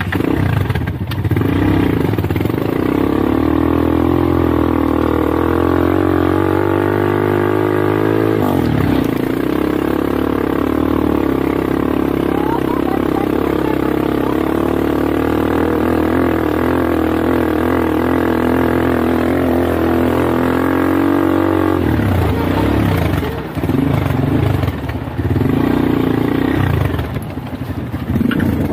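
ATV engine running under load on a rough dirt track. Its pitch climbs for several seconds, drops sharply about eight seconds in, holds steady, then goes uneven with changing revs after about 22 seconds.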